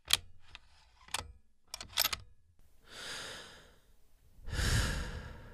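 A few short sharp clicks, then two long breaths, the second one louder.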